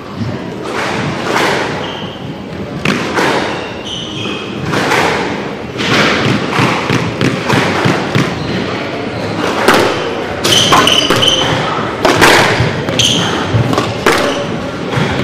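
Squash balls thudding against walls and floor on other courts, several irregular hits echoing through the hall.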